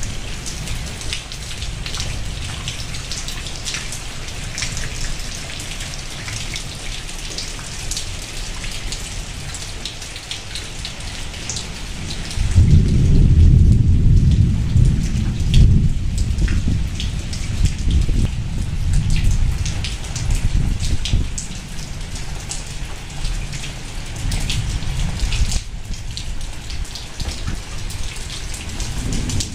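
Heavy rain falling steadily, a dense patter of drops. About twelve seconds in, a deep low rumble sets in suddenly and rolls on for over ten seconds before dying away.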